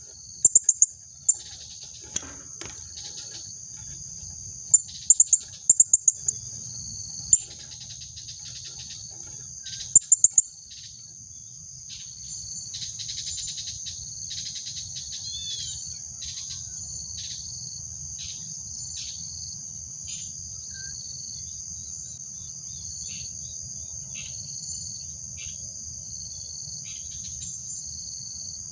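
Female blue-crowned hanging parrot (serindit) giving sharp, high-pitched calls in short clusters over about the first ten seconds, then fainter single calls, over a steady high trill of crickets.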